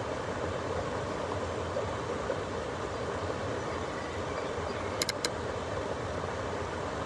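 Steady outdoor background noise, a low rumble with hiss, like distant traffic, with two short sharp clicks about five seconds in.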